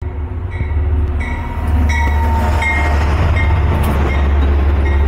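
Amtrak passenger train pulling in alongside the platform, its P32AC-DM diesel locomotive passing close with a steady low rumble that grows louder about two seconds in. A short high ding repeats about every three-quarters of a second over it, like a locomotive bell ringing.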